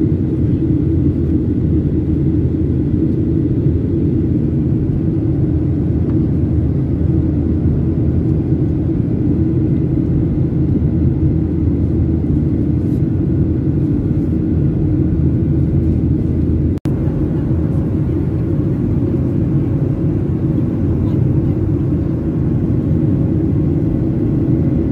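Steady low rumble of a jet airliner in cruise heard from inside the cabin: engine and airflow noise, with one brief dropout about two-thirds of the way through.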